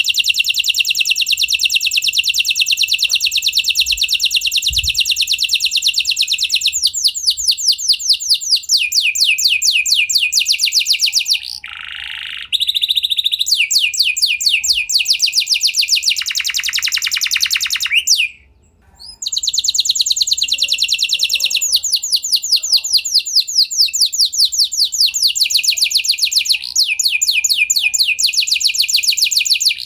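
F1 canary singing long, rapid trills that change speed from one phrase to the next, with a softer, lower phrase about twelve seconds in and a brief break a little past halfway.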